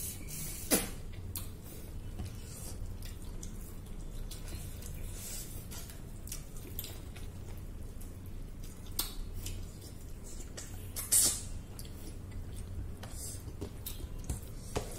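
Close-miked eating sounds: wet chewing and lip smacks, with fingers picking food off plates. Short sharp clicks are scattered throughout, and two louder smacks come about a second in and about two-thirds of the way through, over a low steady hum.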